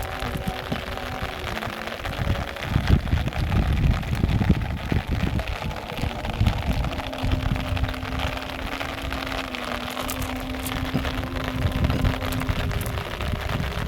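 Steady rain falling, with uneven low rumbling surges.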